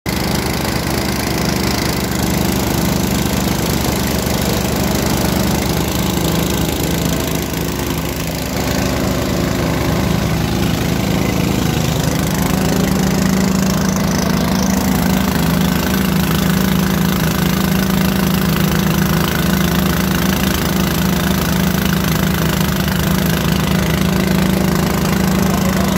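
Engine of a small water-well drilling rig running steadily while the rig drills, a constant mechanical hum with a slight dip in level about eight seconds in.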